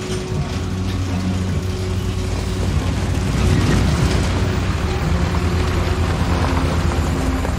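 GMC cab-over box truck driving slowly right over the camera, its engine and tyre noise building to a peak about three and a half seconds in and staying loud as it passes.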